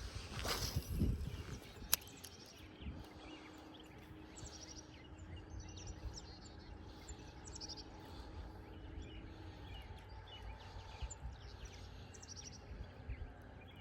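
Small birds chirping and calling over and over. There is a short rustle near the start, a sharp click about two seconds in, and a faint steady hum in the middle.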